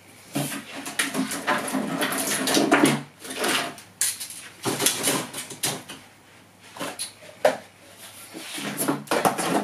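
An animal-like roar lasting about two and a half seconds, then a shorter one, as from a toy dinosaur. Later, scattered knocks and rattles of hard plastic toys being handled and packed away.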